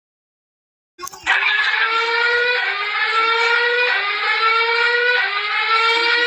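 Synthetic emergency-alert siren tone for an earthquake warning, starting about a second in: several stacked tones gliding slowly upward, repeating about once a second.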